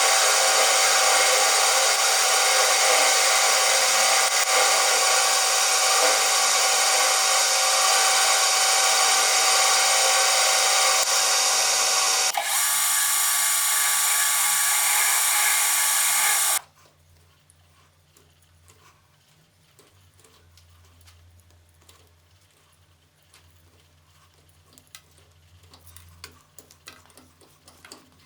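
Machine tool cutting metal, a steady loud run that changes pitch about twelve seconds in. It stops abruptly a few seconds later, leaving only a low hum and faint scattered ticks.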